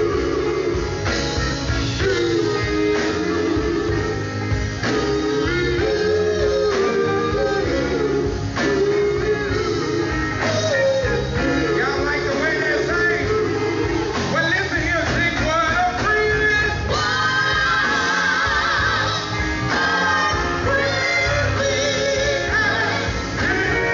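Male gospel vocal group singing live, backed by a band of electric guitar, bass guitar, drums and keyboards.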